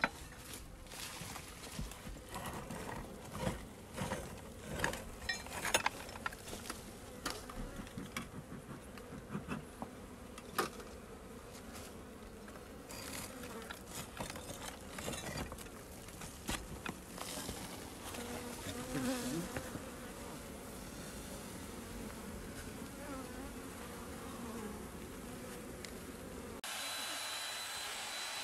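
Honey bee colony buzzing, with scattered knocks and scrapes as stones and comb are handled at the nest opening. Near the end it switches abruptly to the steady hiss of a bee vacuum running through its hose.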